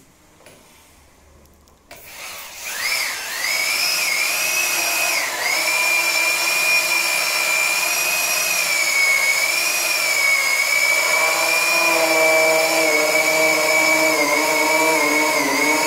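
Electric drill fitted with a hole-saw cutter spinning up about two seconds in, then holding a loud, steady high whine while it cuts conduit entry holes in an electrical box. Its pitch wavers briefly, and lower tones join in the second half as the cutter bites.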